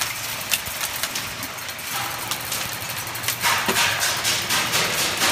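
Airsoft gunfire: a few scattered single shots, then from about three and a half seconds in a rapid run of shots, full-auto fire.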